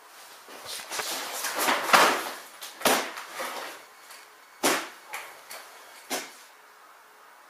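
A person dropping into a padded office chair and settling at a desk: a stretch of rustling and shuffling, then a few short knocks as the chair and desk are bumped.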